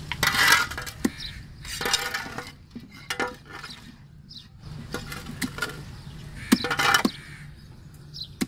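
Large fish-cutting knife scraping and chopping on a wooden chopping block as fish is cleaned and cut: several bursts of scraping with sharp chops and clinks, loudest near the start and again about seven seconds in.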